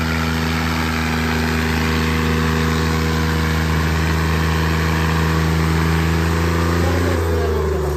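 Diesel tractor engines of a Swaraj 855 FE and its rival pulling flat out against each other in a tug-of-war, a loud steady drone under heavy load. About seven seconds in the engine pitch shifts and wavers.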